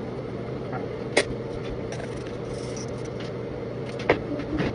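A steady electric motor hum, with a sharp click about a second in and another near the end.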